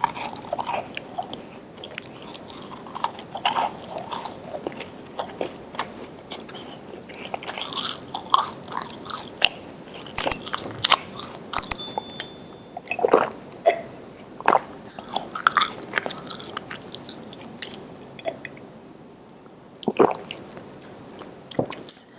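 A person chewing and biting into cookies with a crispy outside and soft inside: irregular wet mouth clicks and crunches.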